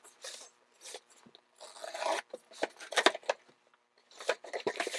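Cardboard shipping box being opened and unpacked: irregular scraping and rustling of cardboard, with a few sharper knocks.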